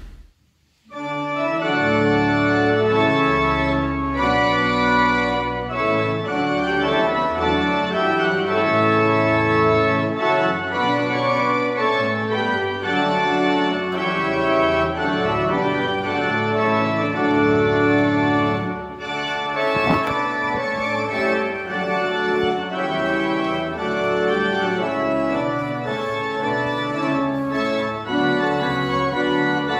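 Organ music after a brief pause: sustained chords moving slowly from one to the next. A single sharp crackle from the recording about two-thirds of the way through.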